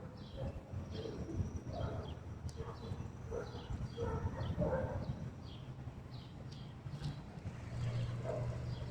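Birds calling: a short, high, falling chirp repeated two or three times a second, with lower calls among them, over a low steady hum.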